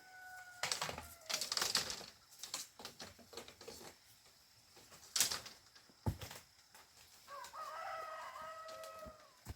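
Rooster crowing: one crow tails off about a second in and another, with a few bends in pitch, starts about three-quarters of the way through. In between come scattered clicks and rustling, with a loud sharp click and a knock around the middle.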